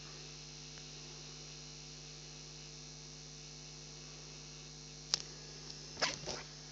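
Steady low electrical hum made of several held tones. A single sharp click comes about five seconds in, and a few brief knocks follow near the end.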